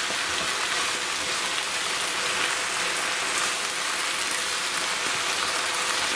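Pan of vegetable fried rice with freshly added mushrooms sizzling steadily over high heat while it is being mixed: a continuous crackling hiss.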